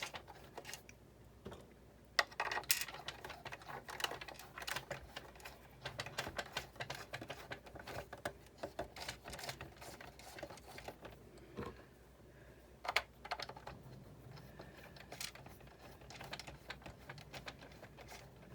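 Quick, irregular small clicks and taps of plastic and metal parts and screws being handled while a Sizzix Big Shot die-cutting machine is reassembled, busiest in the first half, with a few sharper clicks later on.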